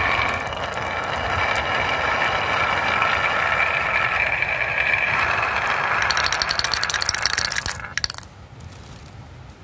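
Marbles rolling along a carved wooden wavy marble track, a steady rolling whirr with a faint ringing tone in it. About six seconds in it turns into a rapid clatter of clicks, and it stops about eight seconds in.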